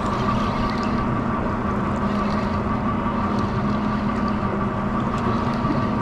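Outboard motor idling with a steady, even hum, and a few faint ticks over it.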